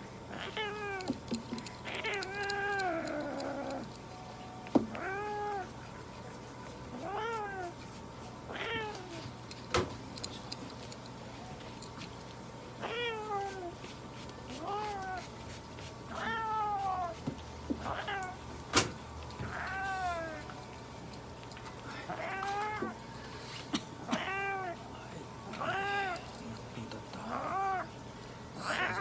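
A restrained cat meowing over and over while its fur is clipped, a drawn-out meow every one to two seconds, each rising and then falling in pitch. Under the meows runs the steady hum of electric hair clippers, with a few sharp clicks.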